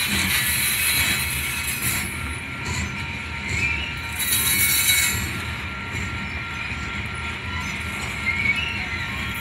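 Covered hopper cars of a grain freight train rolling past with a steady low rumble, their wheels squealing in thin, steady high tones.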